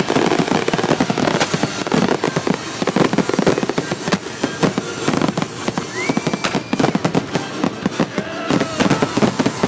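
A continuous fireworks barrage: a dense, rapid run of cracks and bangs with no break. A brief high whistle rises and holds about six seconds in.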